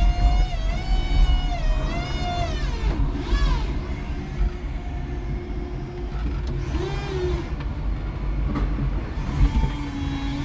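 5-ton electric forklift truck running: a low rumble under a whining electric motor whose pitch rises and falls as it manoeuvres, then a steadier whine near the end as the fork carriage is raised.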